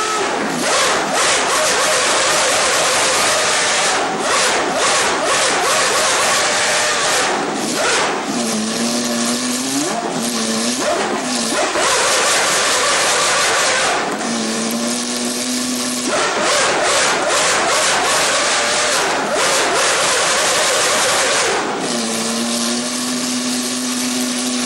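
McLaren Formula 1 engine revved hard to a shrill scream at very high rpm (around 18,000 rpm), dropping back to a steady idle three times: about eight seconds in, around fourteen seconds, and again near the end. Between the first two idles come a few quick throttle blips.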